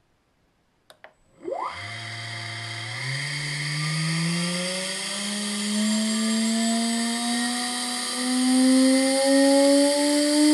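Two clicks of VFD keypad buttons, then a 2.2 kW water-cooled spindle motor spins up and runs with a steady whine whose pitch climbs in small steps as the VFD's frequency is raised.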